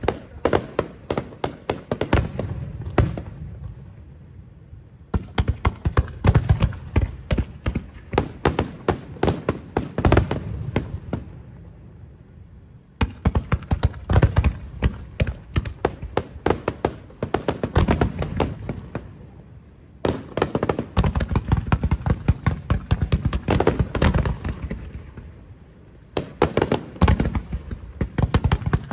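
Aerial fireworks bursting in rapid volleys, dense cracks and booms in waves of several seconds with brief lulls between: the closing barrage of a fireworks show.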